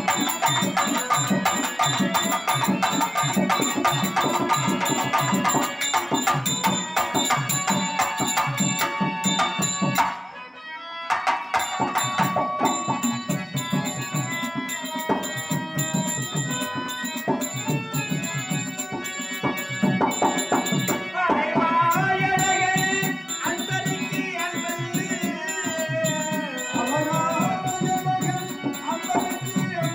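Live Tamil stage-drama music: hand drums keep up a fast, steady rhythm with harmonium, breaking off briefly about a third of the way in. In the second half a man's voice sings a melody over the drums.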